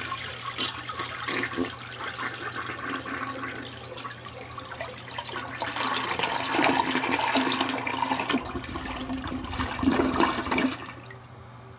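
Toilet flushing: a long rush of swirling water that eases off, swells again after about six seconds, then cuts off about eleven seconds in.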